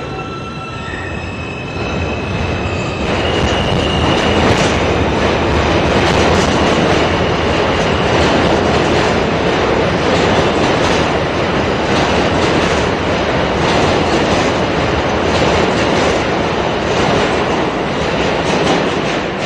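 R160 subway train's propulsion whining in steps that rise in pitch as it gathers speed. This gives way after about three seconds to loud, steady wheel-on-rail running noise with rapid clicks over the rail joints.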